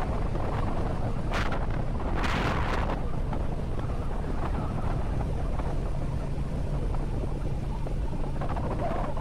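Wind buffeting the microphone over the steady running of a TVS Apache RTR motorcycle engine at cruising speed, with a short gust of louder wind hiss about two seconds in.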